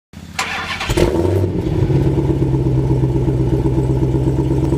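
Car engine sound effect: the engine starts up in the first second, then runs with a steady deep rumble.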